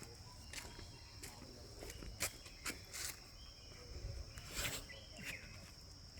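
Outdoor ambience: insects droning steadily at a high pitch, with scattered light clicks and rustles.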